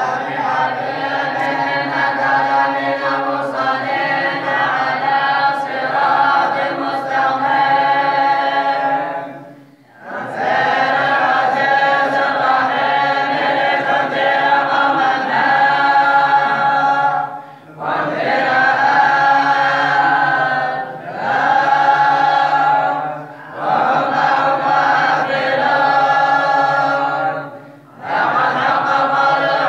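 Many voices of boys and men chanting a recitation together in unison, in long phrases broken by brief pauses for breath every few seconds.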